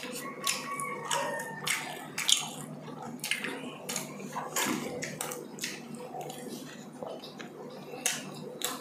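Close-miked eating sounds: chewing, lip smacks and mouth clicks coming irregularly, several to the second, as two people eat rice and meat with their hands.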